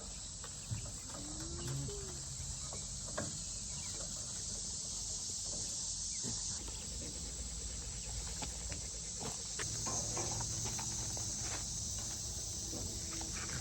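Steady high-pitched insect chorus, with a few faint knocks and clicks scattered through it.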